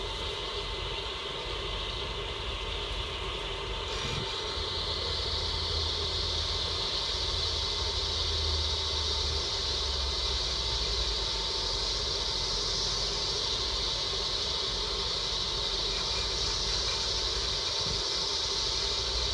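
Storm wind rushing and roaring steadily, slowly building in strength, with a faint steady whine underneath.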